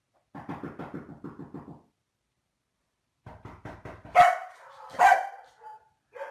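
Komondor growling low and rapidly, then breaking into two loud barks about a second apart.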